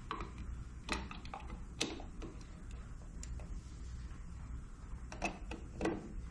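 Scattered sharp clicks and taps of a plastic turn signal lens and its small screws being handled and fitted, louder about a second in, near two seconds, and twice near the end.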